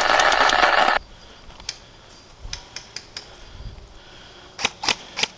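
A loud rushing, rustling noise for about the first second, which cuts off abruptly. A few faint clicks follow, then near the end three sharp snaps of airsoft gunfire in quick succession.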